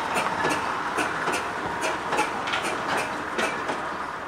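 Steam traction engine running while standing still: a steady hiss of steam with evenly spaced beats from the engine, about two to three a second.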